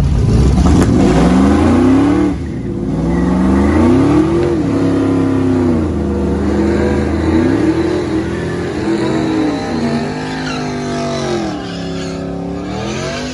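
Engine at full throttle in a drag race, pulling hard through the gears: its pitch climbs and drops back at each upshift, five or six times, slowly fading as it gets farther away.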